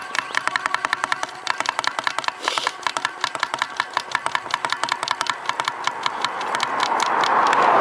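Bicycle mini hand pump worked quickly to reinflate a slowly leaking road-bike tyre: short, rapid strokes, several a second, each with a click. Near the end a rising rush of noise swells up over the pumping.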